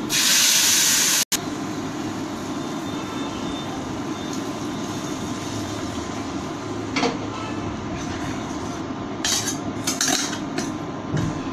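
Hot milk poured into a hot pan of ghee-roasted vermicelli: a loud sizzling hiss for about a second that cuts off abruptly. Then a steady low hum, with a few scrapes and clinks of a metal spoon stirring in the metal pan in the second half.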